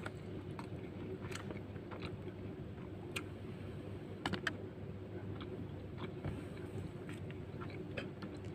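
Close-up eating sounds: a person chewing nasi lemak, with small clicks and scrapes of a spoon against the banana leaf and paper wrapper, the sharpest pair about four and a half seconds in. A steady low hum sits underneath.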